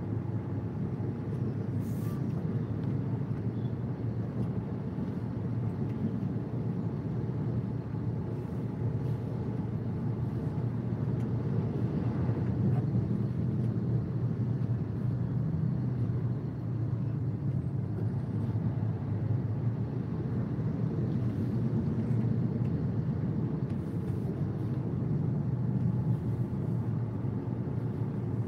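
Steady low rumble of a car's running engine and the surrounding traffic, heard from inside the cabin of a car crawling in a traffic jam.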